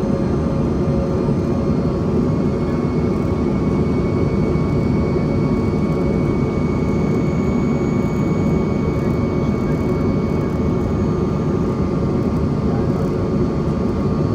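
Steady in-flight cabin noise of a Bombardier CRJ-200: a low rush of air and engine drone from its two rear-mounted General Electric CF34 turbofans, with a few faint steady whine tones over it.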